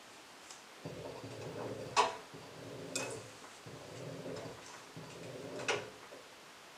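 LG front-loading washing machine in its anti-crease phase after the final spin, the drum slowly tumbling the damp laundry. A low motor hum comes in short runs with brief pauses, and three sharp clicks are heard as the load falls against the drum.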